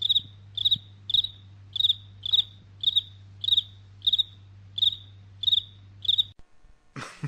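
Cricket chirping, a stock sound effect: short trilled chirps repeating about every 0.6 seconds over a faint low hum, stopping shortly before the end.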